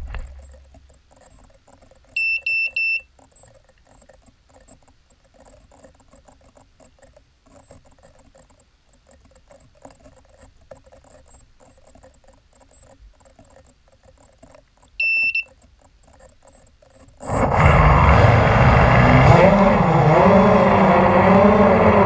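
A hexacopter drone's electronics give three quick high beeps, and a single beep follows later. Then its six propeller motors spin up to a loud buzzing whine that rises and falls with the throttle as it takes off.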